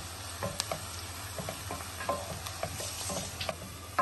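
Chopped onions sizzling in hot oil in a nonstick pan, with a wooden spatula stirring them and tapping and scraping against the pan at irregular moments.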